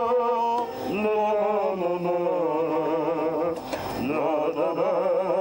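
A man singing a slow Arabic melody with a wavering, ornamented voice, accompanied by an oud.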